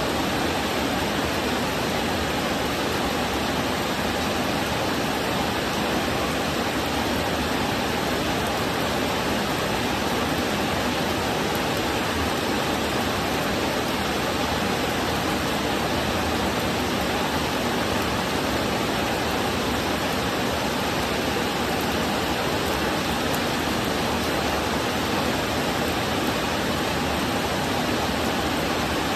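Heavy rain falling steadily, an even rushing noise with no let-up.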